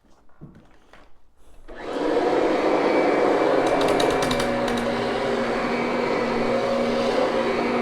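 Kirby upright vacuum cleaner switched on about two seconds in, its motor spinning up quickly and then running steadily with a constant hum, with a few brief ticks near the middle.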